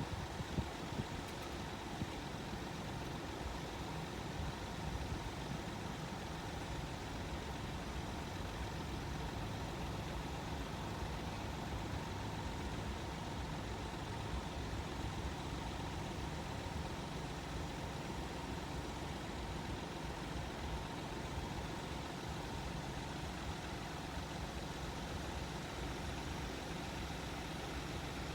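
An engine idling steadily at an even level, with faint constant hum tones.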